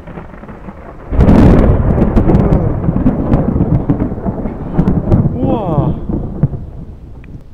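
Thunder from a close lightning strike: a sudden loud crack about a second in that rolls into a heavy rumble for several seconds, then eases off near the end.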